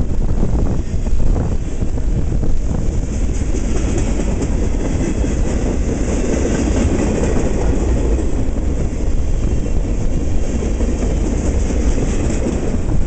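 Freight cars of a long passing train rolling by close to the track: a loud, steady rumble of steel wheels on the rails.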